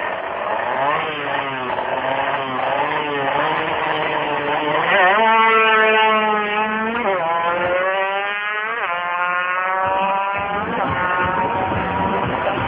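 Drag-racing motorcycle accelerating hard down the strip, its engine note climbing in pitch through each gear and dropping sharply at every shift, then falling in pitch toward the end.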